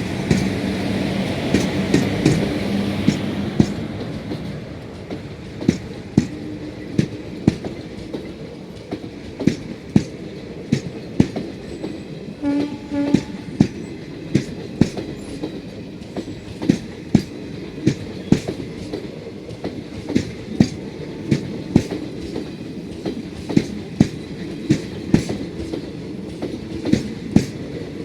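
Passenger train coach wheels clicking over rail joints in a steady clickety-clack. Two short horn blasts sound about twelve and a half seconds in.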